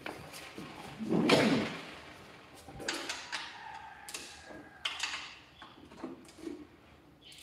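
Hands handling a 12-inch rack tom. About a second in comes a loud rubbing scrape across the drumhead, followed by scattered clicks and knocks on the head and rim.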